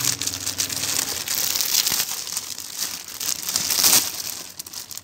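Clear plastic packaging bag crinkling and rustling as it is handled and pulled open, in dense crackles that swell and ease, dying down near the end.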